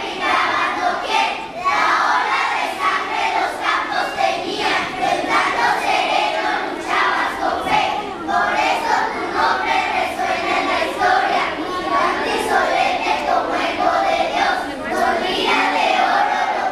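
A large group of schoolchildren reciting a poem together in unison, loud and in short phrases with brief breaks between them.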